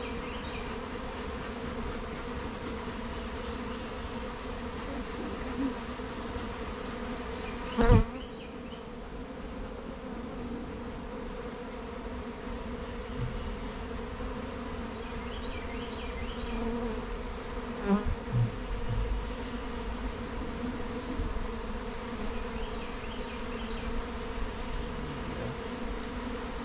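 A mass of honeybees from an opened hive buzzing steadily, a constant drone with a hum of fixed pitch. There is a loud knock about eight seconds in and a few smaller knocks around eighteen seconds.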